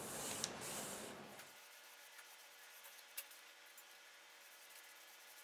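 A cloth rag rubbing dye stain onto a sanded mahogany board. The rubbing stops about a second and a half in, and after that only a few faint ticks are heard.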